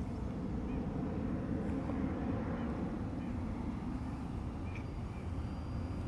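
Steady hum of a hovering tricopter's three brushless motors and propellers, holding an even pitch over a low rumble.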